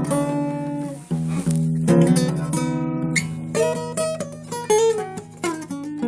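Solo acoustic guitar playing an instrumental piece. Chords are struck at the start and again about one and two seconds in over a ringing bass note, then quicker single notes with a few sliding pitches follow in the second half.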